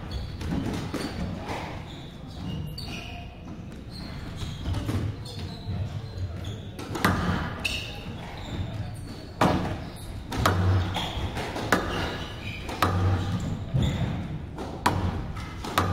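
Squash rally: the ball struck by rackets and slapping off the court walls in irregular sharp knocks, with thuds of the players' footwork on the court floor. The knocks ring on briefly in the hall.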